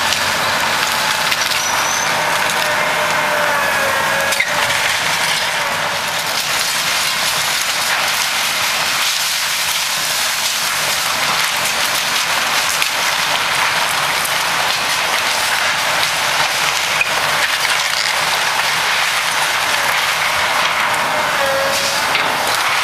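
Komatsu PC200LC hydraulic excavator demolishing a wood-frame house: the diesel engine runs under load while timber cracks and splinters as the bucket crushes and pulls debris. A few short squeals sound near the start and again near the end.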